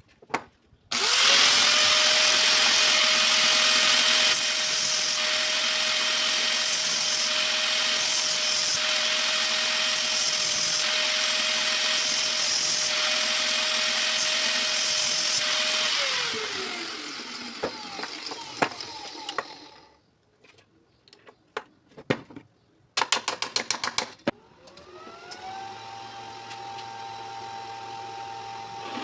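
An electric power tool's motor winds up about a second in and runs loud with a steady hiss for about fifteen seconds, then winds down. After a few clicks and a quick rattle, a motor winds up again and runs more quietly near the end.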